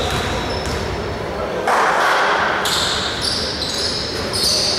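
Basketball game sounds in a large gym: players' and spectators' voices echoing and a basketball bouncing on the hardwood. The noise gets louder about two seconds in, and short high sneaker squeaks follow as the players scramble for the rebound.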